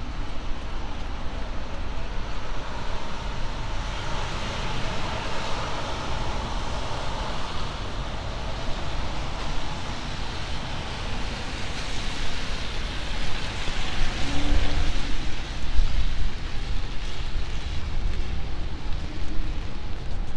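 City street traffic on rain-wet roads: car tyres hissing on wet pavement, swelling and fading as vehicles pass, over a steady low rumble.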